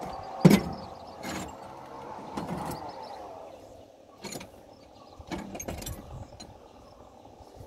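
A few sharp clicks and knocks from hands handling the tractor's engine parts, the loudest about half a second in, over a faint steady drone.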